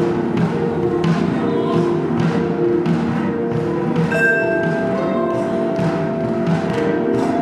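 Small improvising ensemble of vibraphone, cello, harp, percussion and voices playing music: sustained pitched notes over a steady pulse of soft percussive hits, with a new high ringing note entering about four seconds in.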